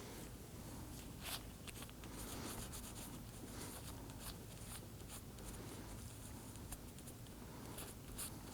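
Faint rubbing and a few light clicks of plastic door-handle parts being handled, with one clearer click about a second in.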